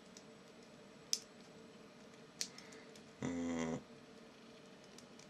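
Two sharp clicks of the pick working in the padlock's keyway, then a brief, steady-pitched vocal sound lasting about half a second, a little past the middle.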